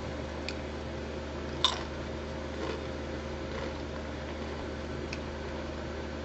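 A thin, dry potato chip strip cracks once, sharply, about two seconds in, followed by a few faint light crunches and clicks, over a steady low room hum.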